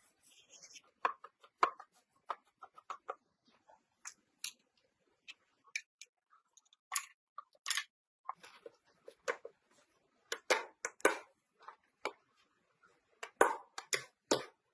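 Irregular sharp clicks and metallic knocks of small gun parts being handled and worked by hand, with a cluster of louder knocks near the end.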